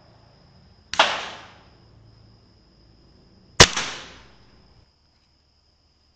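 Two air rifle shots about two and a half seconds apart. Each is a sharp crack that trails off over about a second.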